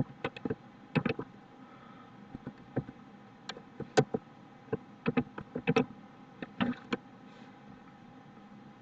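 Irregular keystrokes and clicks on a computer keyboard and mouse as lines of text are selected, copied and pasted, with short gaps between them and a small cluster of quick clicks past the middle.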